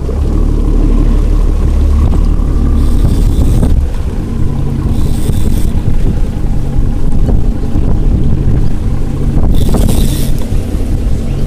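Fishing boat's engine running under throttle with wind buffeting the microphone. A deep drone is strongest for the first four seconds and then eases, and there are short gusts of hiss.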